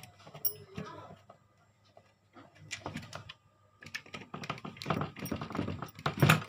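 Small screws being tightened into a plastic mini speaker case with a screwdriver: a run of light clicks and scrapes, sparse at first and busier in the second half.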